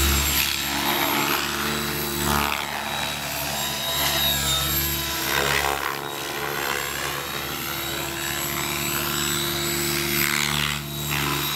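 Logo 600 electric radio-controlled helicopter in flight: a steady drone of rotor and motor. Its pitch sweeps up and down several times as it swoops and passes.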